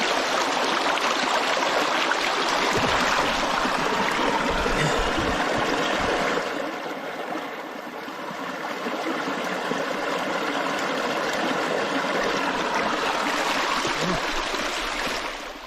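Creek water running over rocks, a steady babbling rush that eases somewhat about six seconds in and then builds again.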